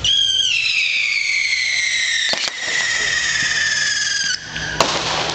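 Whistling firework: a shrill whistle that sinks slowly in pitch for about four seconds and then stops, followed by a sharp bang and crackling near the end.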